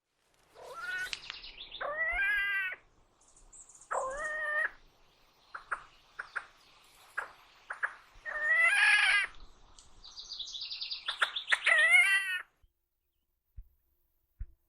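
Ruffed grouse giving a series of squealing, cat-like mewing calls, about six drawn-out notes, some bending upward, with short clipped notes between them.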